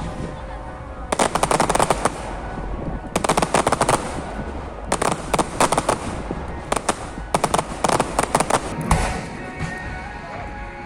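Fireworks going off in rapid crackling volleys: about five quick strings of sharp pops, each lasting up to a second, with short gaps between.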